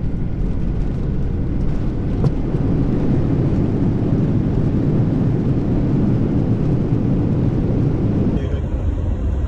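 Cabin noise of a Boeing 737-800 rolling along the runway: a loud, steady, deep rumble of engines and wheels. Near the end it switches to the rumble of a van driving on a road.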